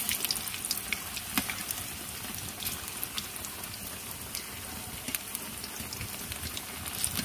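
Cabbage and potato pakoras in gram-flour batter deep-frying in hot oil: a steady sizzle with scattered crackles and pops. The fritters have been turned and the second side is frying.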